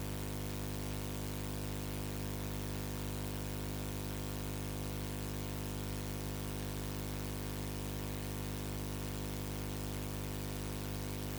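Steady electrical hum with a buzz of evenly spaced tones and constant hiss, unchanging throughout: noise on an audio feed that carries no programme sound.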